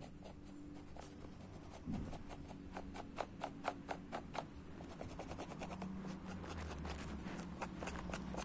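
Painting tools working on a canvas: a soft scratchy rubbing, with a quick run of sharp taps near the middle.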